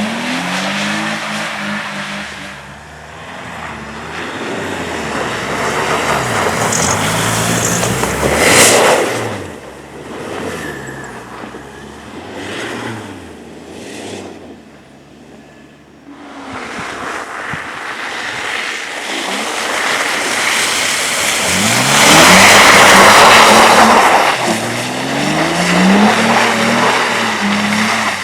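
Cars driven hard on a race circuit, engines revving up and dropping back through gear changes as they pass. The loudest passes come about eight seconds in and again around twenty-two to twenty-four seconds, with a quieter lull between.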